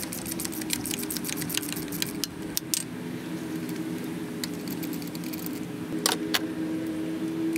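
Metal socket and extension rattling and clicking quickly as a spark plug is spun out by hand, for about three seconds, then a couple of clinks about six seconds in. A steady low hum runs underneath.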